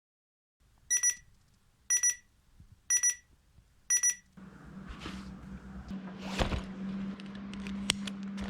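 Four short electronic double beeps about a second apart, like an alarm or timer. From about halfway through, a steady low hum with rustling and a few clicks.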